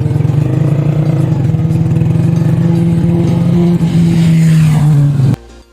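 Vehicle engine running steadily under way, its pitch rising slightly, cutting off abruptly near the end.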